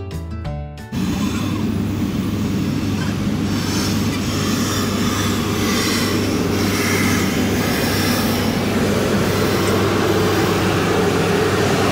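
Background music cuts off about a second in, giving way to a steam locomotive moving slowly past along the platform: a loud, steady noise over a low hum.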